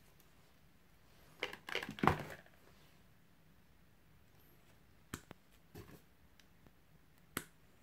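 Steel combination pliers handling and snipping thin insulated copper wire: a crinkly rustle of wire being handled, then a few sharp snips in the second half as the jaws cut through small wires with no trouble.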